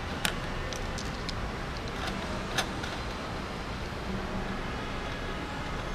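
Light clicks and taps as thumb nuts are unscrewed and handled on the HEPA filter covers of a dust extractor, two sharper clicks standing out, over a steady low background rumble.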